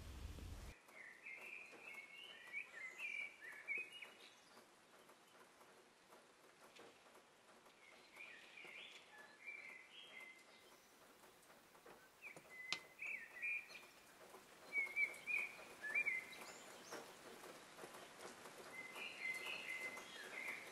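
Faint birdsong: short phrases of chirping, with pauses of a few seconds between them.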